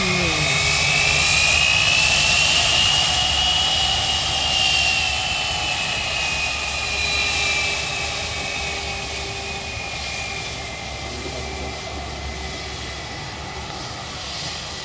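Airbus A319's twin jet engines whining at taxi power as the airliner taxis past. The high whine rises in pitch over the first few seconds, then slowly falls and fades as it moves away.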